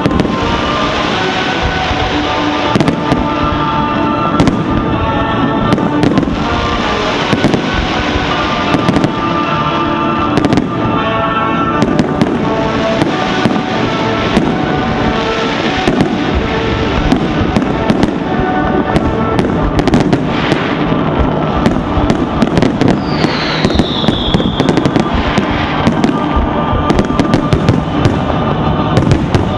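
Aerial fireworks display: many sharp shell bursts and crackling, coming thicker in the last ten seconds, over music.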